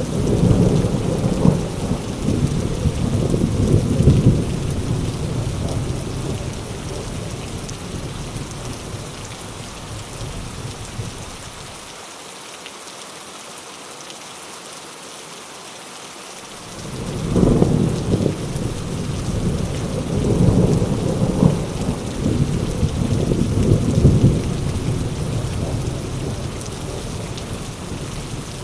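Heavy rain falling steadily, with long rolls of thunder: a rumble dies away over the first ten seconds, and a new roll breaks in abruptly just past the middle and rumbles on before fading near the end.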